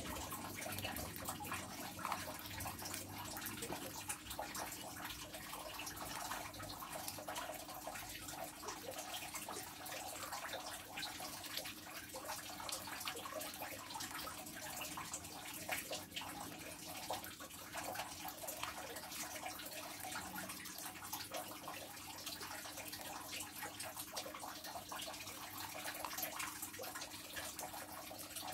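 Water running or splashing, a dense steady crackle of small drops, with a faint steady hum underneath.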